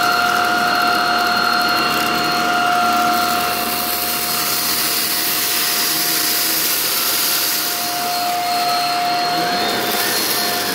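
Shark Rocket DuoClean stick vacuum running with a steady high whine, its powered head pushed over a shag rug scattered with rice.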